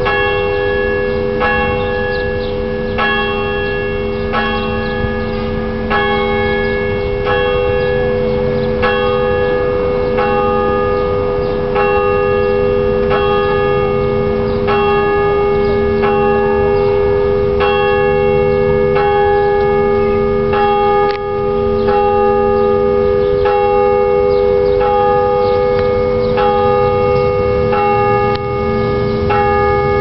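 Church bells ringing continuously: several bells of different pitches struck one after another in an uneven pattern, about one to two strokes a second, over a steady lingering hum.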